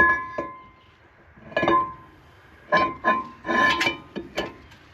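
A new cast-iron brake rotor for a Ford F250 clanking as it is handled and fitted onto the hub: about six metal knocks, each ringing briefly.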